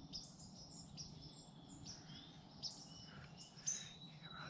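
Faint outdoor ambience of many small birds chirping in short, high calls, with a thin steady high note near the end and a single sharp tap shortly before.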